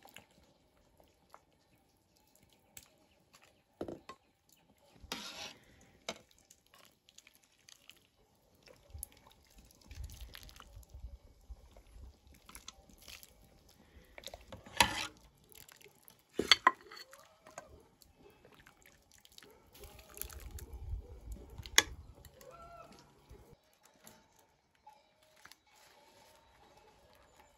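Metal ladle and cooking pots clinking and knocking, with broth pouring and dripping. Scattered sharp clinks run throughout, three of them louder in the second half, with a low rumble now and then.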